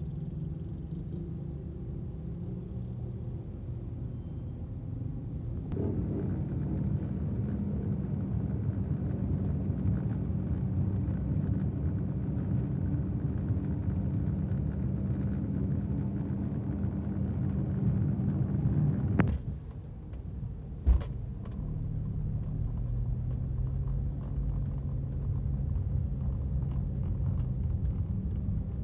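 Car engine and road rumble heard from inside the cabin while driving, getting louder about six seconds in as the car pulls away. A sharp click about two-thirds of the way through, and a thump a second and a half later.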